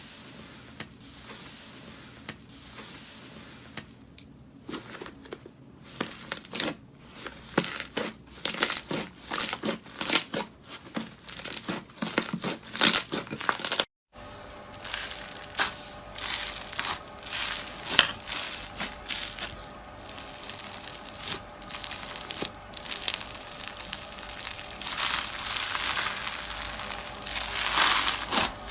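Slime being squeezed and worked by hand, making a run of crinkly crackles and clicks that grow dense about a third of the way in. There is a brief gap about halfway.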